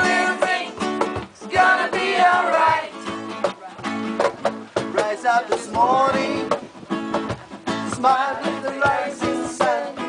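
Live amateur band playing a reggae song: a strummed guitar keeps a steady rhythm while voices sing the melody.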